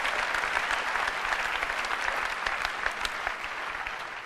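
Large audience applauding, the clapping starting to die away near the end.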